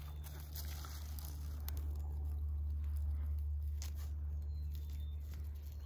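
A steady low rumble, like wind on the microphone, under scattered crackles of dry reeds and stalks and a plastic bag being handled as someone crouches to dig on the ground.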